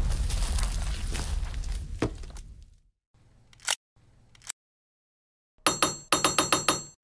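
Cartoon vehicle engine rumbling and fading away, followed by two short whooshes and a brief silence. Near the end a quick, even run of chime-like tinkling strikes begins, about four or five a second.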